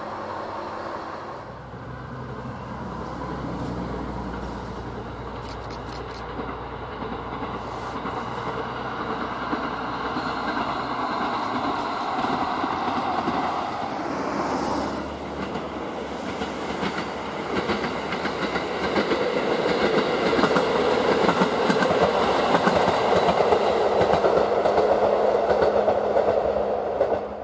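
Diesel train running along the line, its wheels clicking over rail joints. It gets louder from about the middle and is loudest near the end, then cuts off abruptly.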